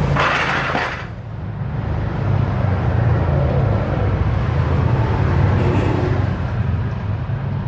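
Steady low rumble of motor-vehicle noise, with a short loud rushing noise in the first second.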